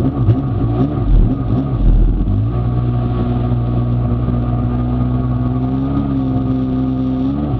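Kawasaki 750SX stand-up jet ski's two-stroke twin engine running under way, its pitch rising and falling with the throttle for the first couple of seconds, then holding steady at speed, with a slight rise near the end.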